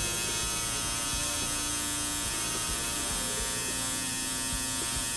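Tattoo machine buzzing steadily while tattooing skin.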